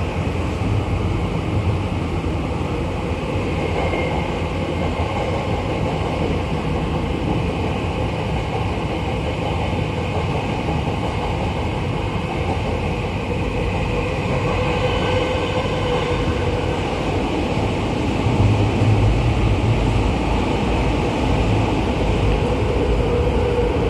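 Toyo Rapid Railway 2000 series subway car running through a tunnel, heard from inside the car: a steady rumble of wheels on rail with faint whining tones over it, growing a little louder about 18 seconds in.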